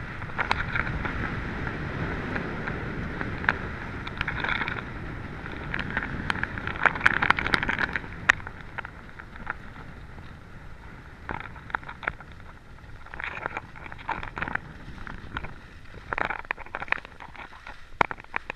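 Skis sliding and scraping over packed, tracked snow with wind rushing over the moving microphone, with scattered sharp clicks and scrapes. It is louder for the first eight seconds, then quieter and choppier as the run slows.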